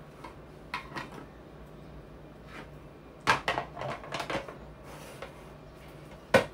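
Kitchen utensils being handled: a mandoline slicer and a plastic storage container knocked and set down on a table, with light clicks about a second in, a clatter of sharp knocks around three to four seconds in, and one sharp knock near the end.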